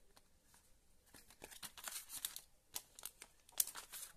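Cardboard of a phone box and its inner tray rustling and scraping as hands handle it: a quick run of small scratchy sounds that starts about a second in and grows busier toward the end.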